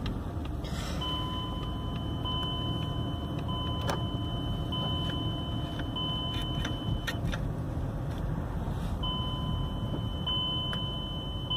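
A car's electronic warning chime sounds inside the cabin as a high, steady tone broken into beeps about a second long. It stops for about two seconds after the middle, then starts again. Underneath is the low road noise of the moving car.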